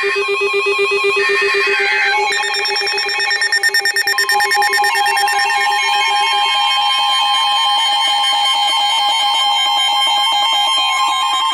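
Several NOAA weather alert radios sounding their alarms at once for a newly issued warning: warbling and beeping electronic alert tones layered over each other. A steady low tone cuts out about six seconds in, and a steady high alert tone comes in about four seconds in and holds.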